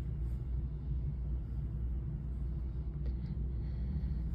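A steady low rumble with a faint even hum over it.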